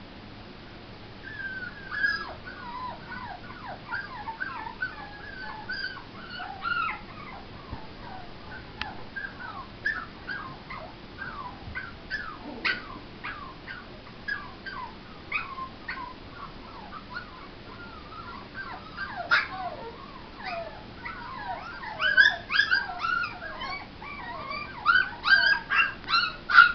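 Young puppies whining and yipping in many short, high cries that bend in pitch. Near the end the cries come faster and louder. The owner takes it as the puppy's brothers wanting to be let loose.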